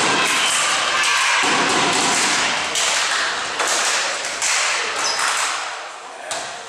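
Volleyball rally in an echoing sports hall: several sharp thuds of the ball being hit, spread over the second half. Behind them, shouting from players and spectators is loud at first and fades toward the end.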